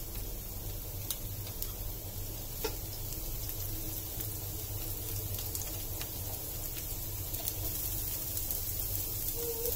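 Dosa batter and ghee sizzling on a hot tawa: a steady faint hiss with occasional small pops and crackles, over a steady low hum.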